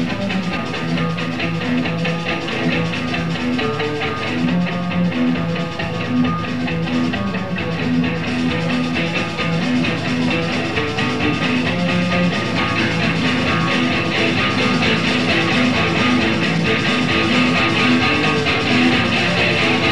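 Punk rock band playing: electric guitars over a drum kit, steady and loud.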